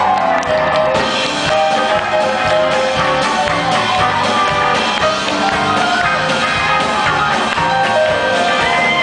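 Live rock band playing loudly: drum kit keeping a steady beat under guitar.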